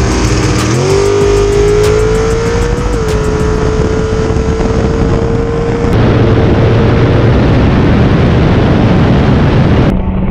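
Dragster engine at full throttle during a drag strip pass. Its pitch climbs over the first few seconds, then holds steady over heavy wind and engine noise. The sound changes abruptly about six seconds in and again near the end.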